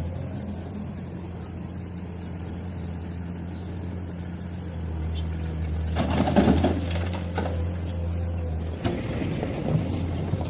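Heavy diesel engine of an excavator loading a dump truck, running steadily. About six seconds in comes a loud clattering rumble, typical of a bucket of rock being dropped into a steel truck bed, followed by a few lighter knocks near the end.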